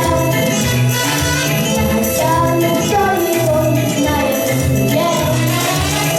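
Upbeat Latin-flavoured backing track with a steady, pulsing beat and jingling tambourine-like percussion, with a melody line gliding over it.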